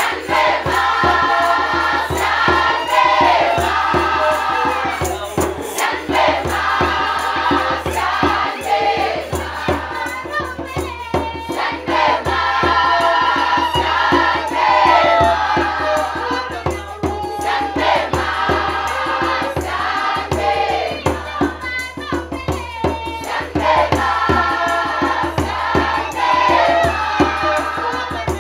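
A choir of women singing together, with a hand drum beating steadily under the voices.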